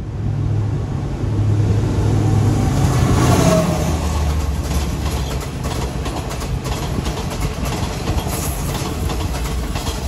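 Diesel train of the State Railway of Thailand running, with a steady low engine drone. From about four seconds in, a quick run of clicks comes from the wheels passing over rail joints.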